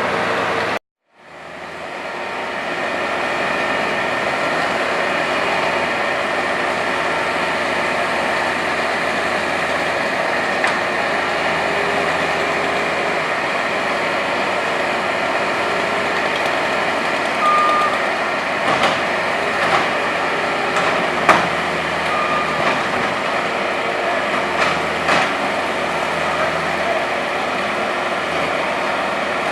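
Skid steer loader's engine running steadily under work, with a few sharp knocks and clanks in the second half. The sound cuts out briefly about a second in, then fades back up.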